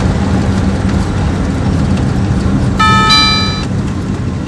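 Road and engine noise inside a car driving slowly through a turn, a steady low rumble. About three seconds in, a short two-note electronic chime sounds for under a second.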